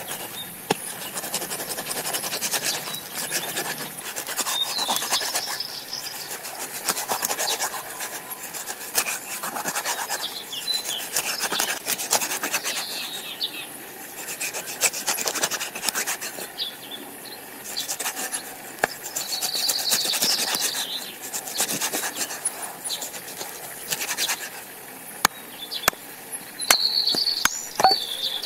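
A large knife scraping and cutting through a whole pomfret on a wooden stump block, with sharp knocks each time the blade hits the wood, repeated irregularly throughout.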